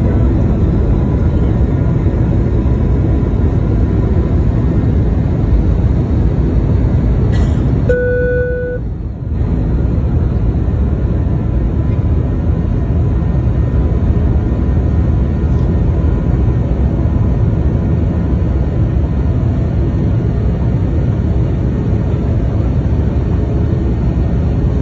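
Jet airliner's engines and rushing air heard from inside the cabin during takeoff and climb: a loud, steady roar. About eight seconds in the roar briefly dips and a short tone sounds.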